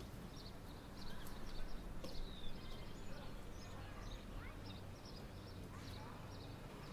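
Birds chirping on and off over a steady low background rumble, with a few sharper clicks between about one and two and a half seconds in.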